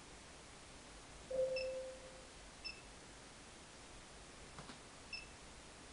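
Electronic beeps from an Android car stereo head unit: one medium tone about a second in that fades away over most of a second, then three short, higher touch-screen beeps spaced about a second apart, over a faint steady hiss.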